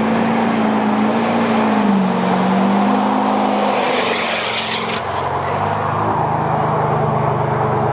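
Car engine running hard, its pitch wavering up and down, then settling to a lower, steady drone about five seconds in.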